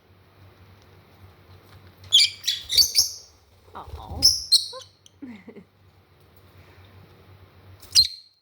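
Pet parrots giving short, sharp squawks: a quick cluster of calls about two seconds in, a couple more around the middle, and one loud call near the end.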